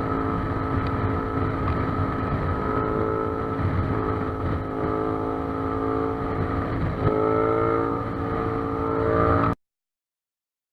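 Yamaha MT-07's 689 cc parallel-twin engine with an Akrapovic exhaust running under way at fairly steady revs. About seven seconds in it gets louder and the revs climb a little, then the sound cuts off suddenly.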